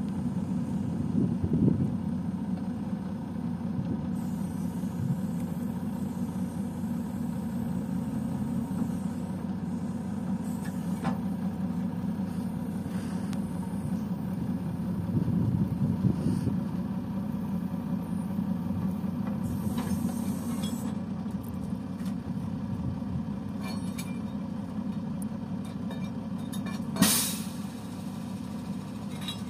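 Truck engine running steadily to power a truck-mounted hydraulic crane as it lifts and swings a concrete sewer ring off the flatbed; the engine swells briefly about halfway through, and a short sharp noise comes near the end.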